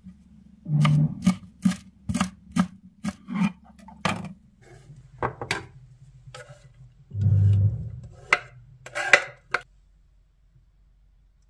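Knife chopping fresh dill on a bamboo cutting board: a run of sharp knocks, about two a second, over the first few seconds, then a few scattered knocks and a dull thump.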